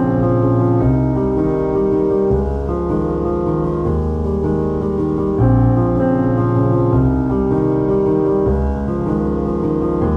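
Background music: sustained chords over a low bass line, the chord changing every second or two.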